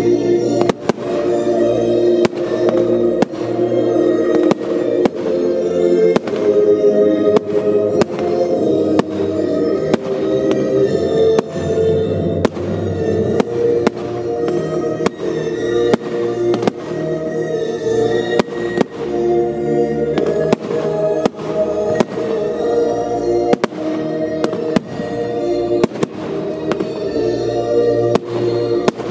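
Fireworks display shells and comets bursting in a steady run of sharp bangs, about one or two a second, over sustained music played for the pyromusical show.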